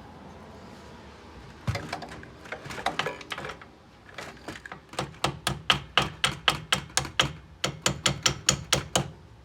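A hammer tapping the pad retaining pins into a Brembo brake caliper: a few uneven strikes, then a fast steady run of light taps, about four a second.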